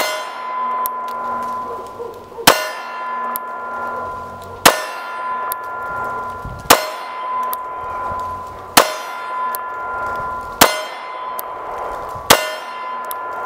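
Seven shots from a Springfield Armory XDS 9mm pistol, about two seconds apart, each met at once by a steel plate target ringing like a bell. Each ring carries on until the next hit.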